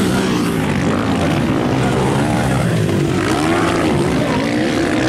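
Motocross dirt bike engines revving hard, several at once, their pitch repeatedly rising and falling as the riders work the throttle over the jumps and turns.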